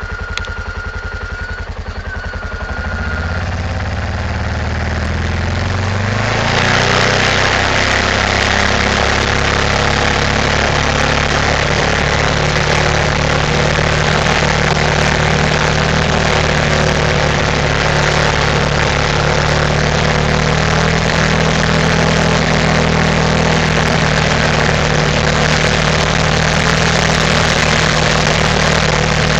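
ATV engine pulling away, its pitch rising over the first six seconds, then running steadily under way with a loud steady rushing noise over it.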